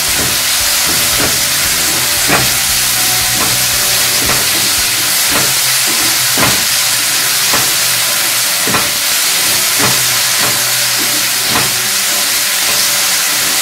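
Onion-tomato masala sizzling steadily in hot oil in a non-stick kadhai, with a plastic slotted spatula scraping and stirring through it about once a second.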